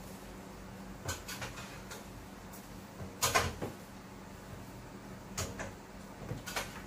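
Kitchen clatter: short knocks and bumps of things being handled and set down at a sink and counter, spaced a second or two apart, with the loudest a little over three seconds in. A faint steady low hum runs underneath.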